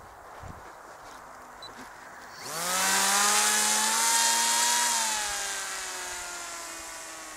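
RC paramotor's motor and propeller starting up with a sudden pitched buzz about two and a half seconds in, its pitch quickly rising then holding steady, then slowly dropping and fading as the model flies past and away.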